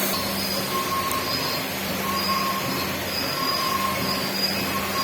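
Heavy-duty CNC machine running: a steady mechanical noise over a low hum, with a high whine that comes and goes about once a second.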